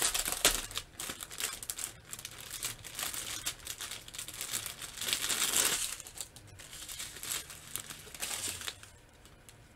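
Clear plastic bag crinkling and rustling as hands open it and handle the small bags of diamond painting drills inside. The rustling is loudest at the start and again about five seconds in, then dies away near the end.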